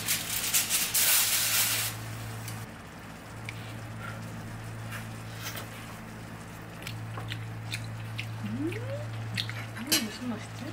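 Hamburg steak patties and shimeji mushrooms simmering in sauce in a frying pan. A loud crackling hiss fills the first two seconds as the foil cover comes off, then quieter bubbling and light clicks of chopsticks against the pan over a steady low hum. A short hummed "mm-hm" of tasting comes near the end.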